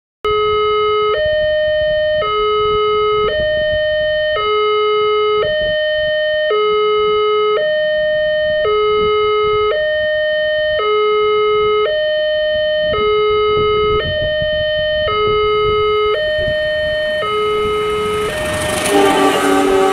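Railroad crossing warning alarm: an electronic two-tone signal switching between a lower and a higher pitch about once a second, warning of an approaching train. Toward the end, the rushing noise of the approaching train builds and a horn sounds.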